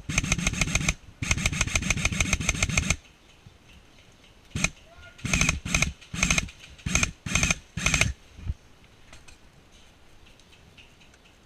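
Airsoft electric gun firing on full auto: two long bursts of rapid, evenly spaced shots, about a dozen a second, then several short bursts between about four and a half and eight seconds in.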